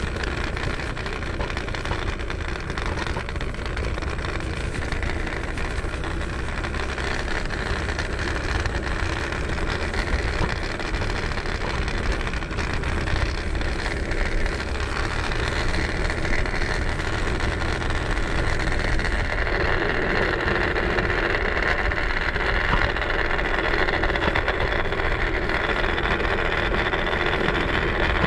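Segway Ninebot ES4 electric scooter riding along, its solid tyres rolling on the road with a steady rumble and hiss.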